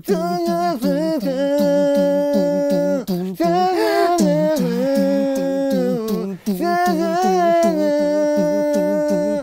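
A voice sings a wordless hardstyle melody in long held notes over a steady thumping beat of about two and a half to three beats a second, breaking off briefly about three and six seconds in.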